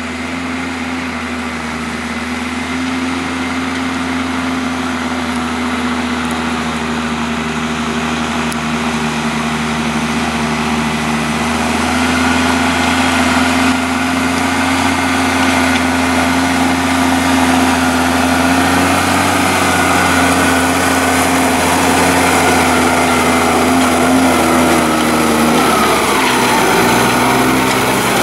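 Deutz-Fahr tractor's diesel engine running steadily under load as it pulls a disc harrow through stubble, growing slowly louder as it comes closer. Near the end its pitch drops as it passes close by.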